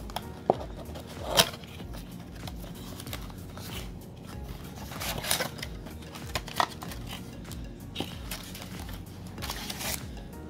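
A cardboard trading-card blaster box being torn open and handled with gloved hands: scattered tearing, crinkling and sharp crackles as the flap comes open and the packs slide out, over quiet background music.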